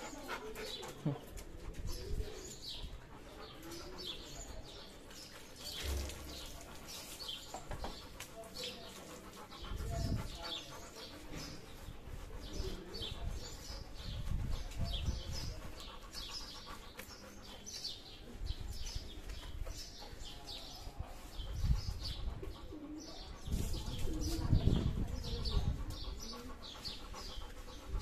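Small birds chirping over and over, short high calls, with low dull rumbles now and then that are loudest in the last third.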